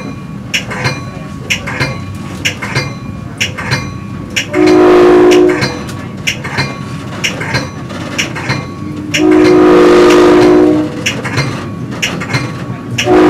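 Commuter train horn blowing from the front of the train: a blast of about a second, then a longer one about four seconds later, and a third starting near the end. Between the blasts the wheels click regularly over rail joints under a steady running rumble.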